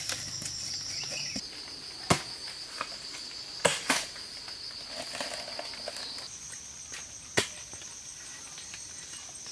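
Machete chopping bamboo shoots: a few sharp chops, one about two seconds in, two close together near the middle and one more later. Under them runs a steady high drone of insects.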